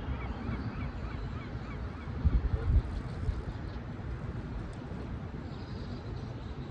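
Birds calling, a quick run of short repeated calls early on, over a steady low wind rumble on the microphone, with a few louder low thumps a little over two seconds in.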